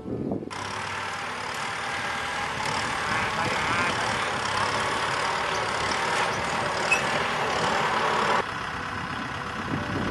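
Diesel farm tractor engines running steadily. The sound starts abruptly and thins suddenly near the end.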